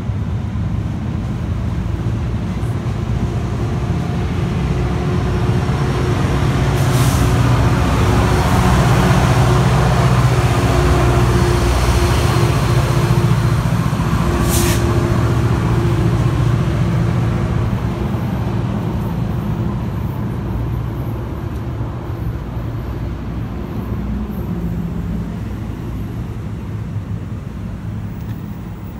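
NJ Transit diesel-hauled commuter train moving through a station: a steady engine and wheel rumble that swells to its loudest about a third of the way in, then slowly fades. Two short air hisses come about seven and fifteen seconds in.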